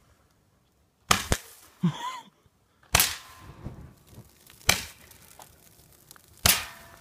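Roman candle firing, a series of sharp pops: two close together about a second in, then one roughly every one and a half to two seconds.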